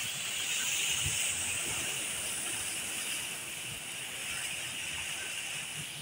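Steady hiss of heavy rain and floodwater running across a street, with a few soft low thumps.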